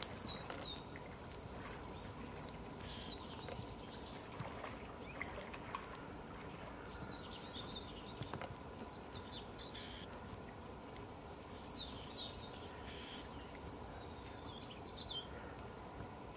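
Birds calling over faint outdoor ambience: scattered high chirps, with a short rapid trill about a second in and again near the end.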